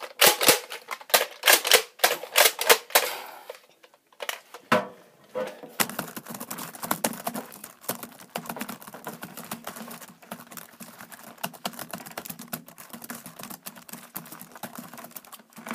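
Sharp clacks in quick succession for about three seconds, then, after a short pause, a long run of rapid light clicking, like fast typing.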